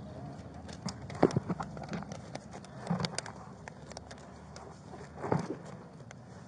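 Clothing rubbing and knocking against a body-worn camera's microphone, heard as a run of irregular clicks and soft thuds. The strongest thuds come about a second in, three seconds in, and just past five seconds.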